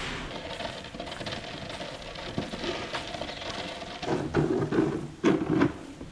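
Plastic shovel blade dragging and scraping along a concrete floor, with a faint steady mechanical hum. Two louder, lower sounds come near the end, one about four seconds in and a shorter one about a second later.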